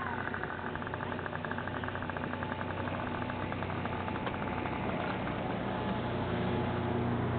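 Small boat's motor running at low speed, a steady low hum with a fast ticking over it at first; the hum grows louder near the end.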